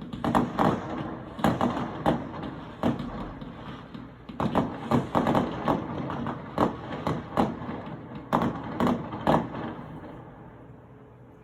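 Fireworks exploding in a rapid, irregular series of sharp bangs, each with a rumbling after-echo, dying away about ten seconds in.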